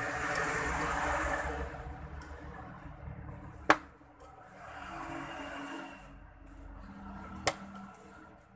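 Small plastic mouse parts being handled, with stretches of rubbing or scraping noise and two sharp clicks about four seconds apart.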